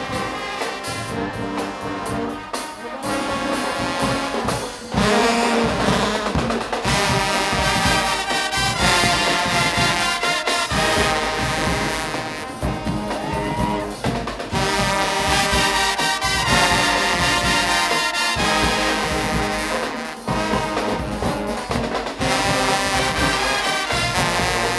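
Guggenmusik band playing loud, brassy carnival music, with trumpets and trombones over a driving drum beat. The music swells louder about five seconds in.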